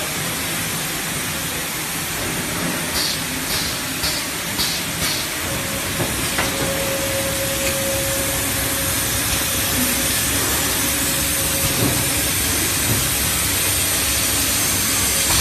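Automatic liquid bottle filling and capping line running: a steady mechanical din with a constant hiss of air. About three seconds in comes a quick run of five short hisses, about two a second, and a little later a steady whine holds for a couple of seconds.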